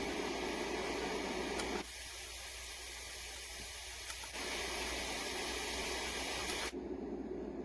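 White noise machine playing steady noise sounds, switching abruptly to a different sound three times: about two seconds in, about four seconds in and near the end. Faint clicks are heard among them.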